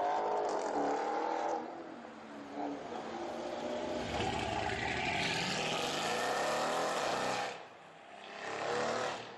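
Supercar engines revving and accelerating: a hard rev at the start, then an acceleration with the engine pitch rising for about three seconds that cuts off abruptly, then a short rising rev near the end.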